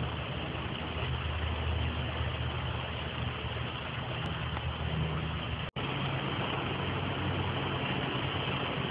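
Fire truck's engine idling steadily under an even hiss; the sound cuts out for an instant about six seconds in.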